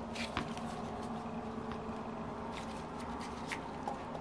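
Quiet handling of a Saito FA-82 four-stroke model glow engine as its finned cylinder is worked off the piston by gloved hands: a scatter of light clicks and taps, over a steady low background hum.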